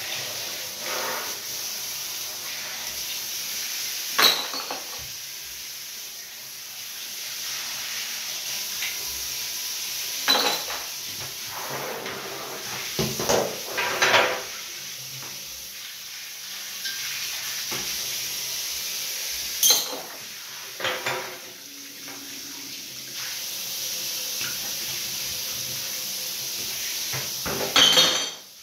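Water spraying from a handheld shower head as green glass beer bottles are rinsed out, with sharp clinks of the glass bottles knocking together about six times.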